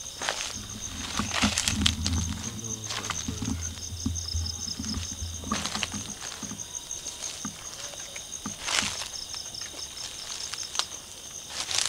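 Night insects trilling steadily in a high, pulsing chorus, with scattered crunches of footsteps on dry leaf litter. A low rumble runs through the first few seconds.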